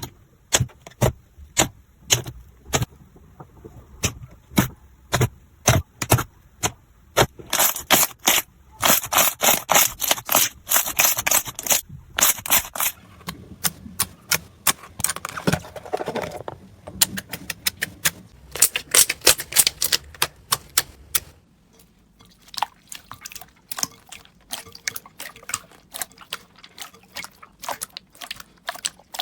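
Slime being squeezed and pressed by hand, crackling with quick clicks and pops. The clicks come in dense runs near the middle and turn sparser and quieter in the last third.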